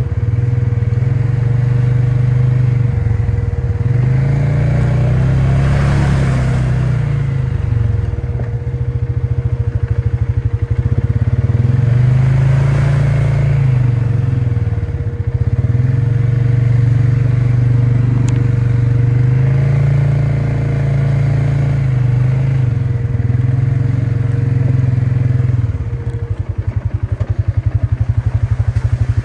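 ATV engine running under way, its speed rising and falling repeatedly as the throttle is worked. A steady high whine runs underneath and stops near the end.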